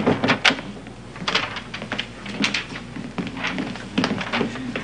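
Typewriter keys clacking in irregular runs of sharp clicks, several a second, starting abruptly.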